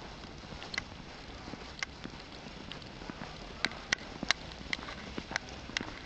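Wind blowing on the microphone, with sharp, irregular clicks from the camera strap knocking against the camera housing. There are a few clicks early, and they come several a second from about halfway through.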